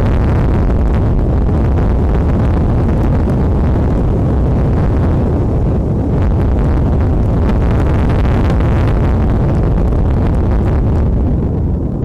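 Strong wind buffeting an outdoor nest-camera microphone: a loud, steady low rumble with no break, easing slightly near the end.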